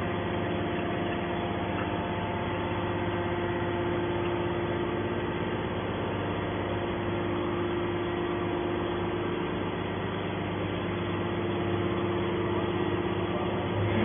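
Hydraulic power unit of a triple-action scrap-metal baler running with a steady hum as the ejection ram pushes a compressed metal bale out of the press.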